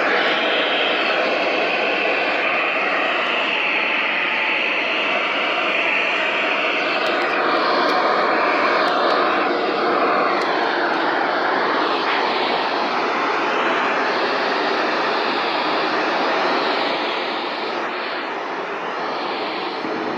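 Loud, steady static hiss from a radio receiver, with faint warbling tones underneath. It eases a little about 17 seconds in.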